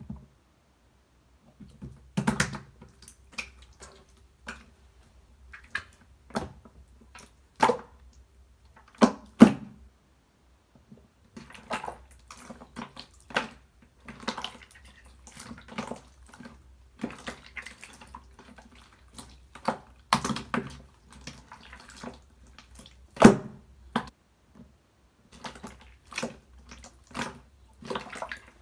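Clear slime being squished and pressed by hand: irregular wet clicks and pops, a few of them louder, with a short pause about ten seconds in.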